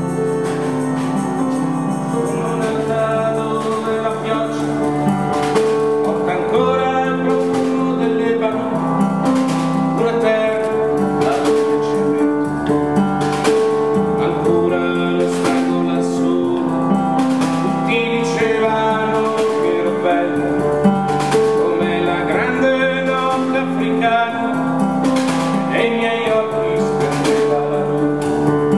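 Live band music: acoustic guitar strumming over long held keyboard notes, with regular percussion hits.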